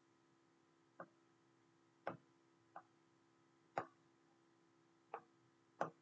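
About six faint, single clicks at uneven spacing over near silence, from the input device used to move and resize an image on a drawing app.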